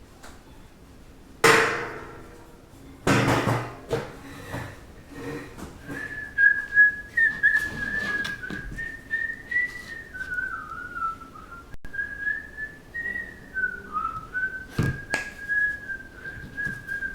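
Two sharp knocks in the first few seconds, then a person whistling a wavering tune with a few light clicks underneath.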